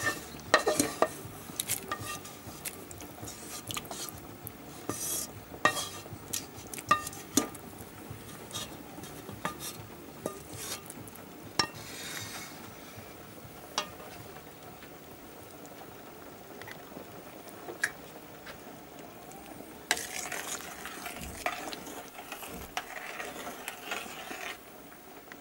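A utensil scraping fried onions out of a frying pan into a pot of boiling soup: many sharp metal clicks and scrapes against the pan, thinning out after about twelve seconds, then a stretch of stirring in the pot near the end.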